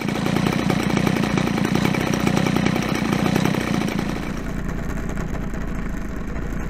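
A DLE 60 two-stroke gasoline engine of a VTOL drone running steadily, heard close up through a camera mounted on the airframe. It is a dense, rapid buzz and eases slightly about four seconds in.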